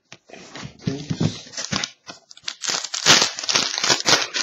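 Plastic wrapper of a trading-card pack crinkling as hands work it open, with cards rustling in the fingers. The crinkling is light at first and gets loud in the second half.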